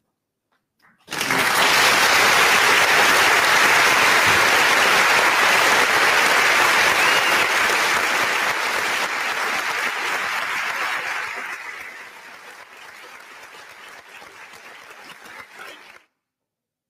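Audience applauding, starting about a second in, loud and even for some ten seconds, then dying down to a thinner, quieter clapping before it cuts off suddenly near the end.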